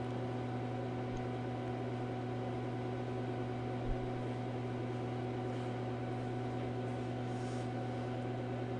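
Steady low electrical hum over a faint hiss: the background noise of the recording, with a soft bump about four seconds in.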